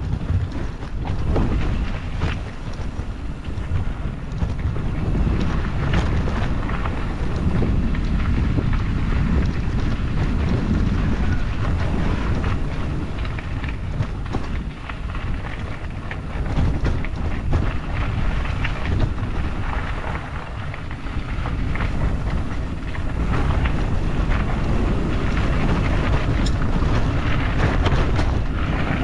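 Wind buffeting the microphone while riding a bike, a dense rumbling noise with scattered knocks and rattles.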